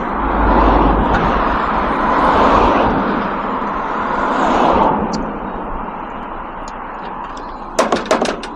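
Road traffic passing, a noise that swells and fades about three times. Near the end comes a quick run of sharp knocks.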